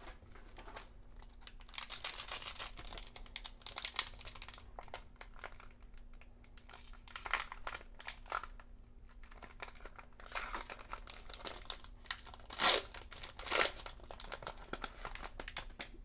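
Foil wrapper of a Pokémon trading card booster pack being torn open and crinkled by hand, in irregular crackling rustles with two louder sharp crackles about three-quarters of the way through.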